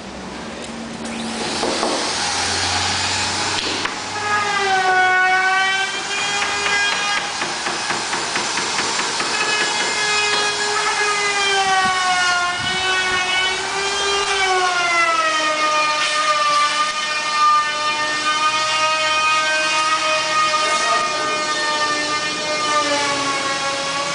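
A loud whining noise with many overtones whose pitch slowly wavers up and down, starting about four seconds in after a rush of hiss: the noise problem being recorded in a hotel room.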